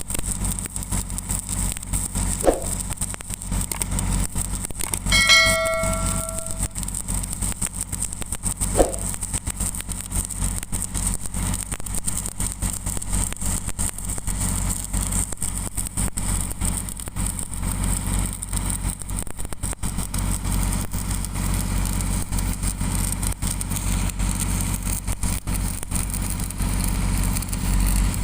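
Stick welding on steel pipe: the arc crackles steadily over the low hum of a running engine. A short metallic ring sounds about five seconds in, with two brief knocks around it.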